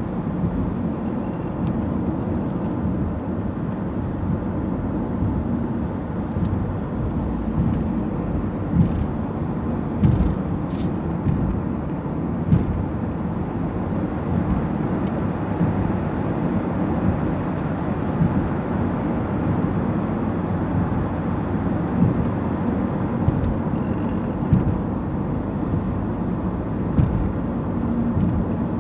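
Road and engine noise inside a moving car's cabin: a steady low rumble of tyres and engine, with a few short knocks now and then.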